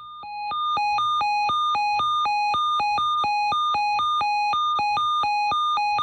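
Emergency alert attention tone: a buzzy electronic tone switching back and forth between a lower and a higher pitch every quarter second or so, fading in over the first second and then holding steady and loud. It is the alarm that comes before a severe thunderstorm watch message.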